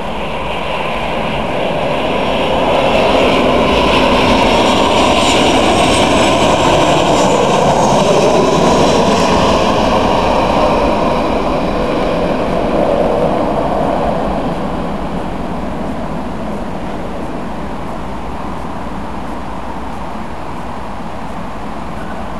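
Boeing 737-800's CFM56 turbofan engines as the airliner comes in low on final approach and lands. The jet noise swells to its loudest with a whine that falls in pitch as the plane passes, then settles into a steadier, quieter rumble as it rolls out down the runway.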